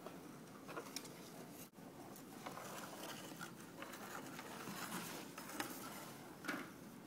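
A cat's paws pattering and scuffing on a hardwood floor, with a few light taps and scrapes as it bats at a cardboard tube.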